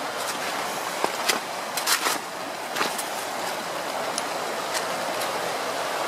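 Shallow river rippling and rushing over stones, the water running low. A few short clicks sound over it.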